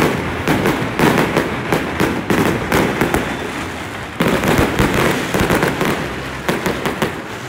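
Aerial fireworks going off overhead: rapid volleys of sharp cracks and bangs, easing off a little after three seconds before a fresh volley about four seconds in.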